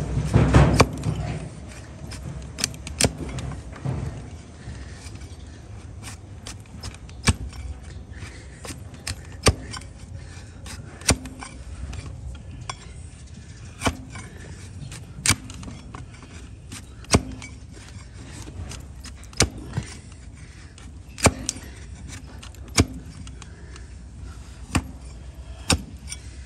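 Trimming blade cutting through a donkey's thick hoof horn, giving sharp single cracks every second or two at an uneven pace. There is a louder burst of low scuffling in the first second.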